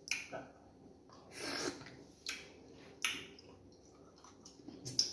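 Close-up eating sounds of fufu with egusi soup: about half a dozen short wet smacks and squelches of chewing and swallowing, spread unevenly.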